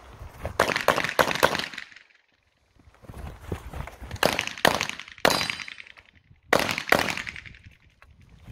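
Handgun shots fired in fast strings and pairs: a quick run of about four shots about a second in, then pairs later on, with short pauses between them while the shooter moves and picks up new targets.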